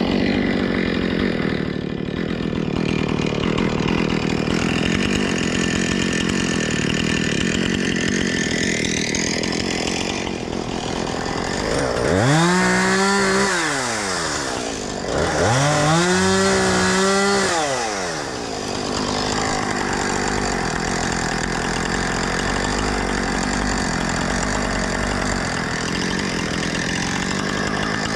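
Husqvarna 460 Rancher chainsaw running steadily while topping and limbing felled yellow cedar logs. A little past the middle it is revved up twice, its pitch rising, holding for a couple of seconds and falling back each time.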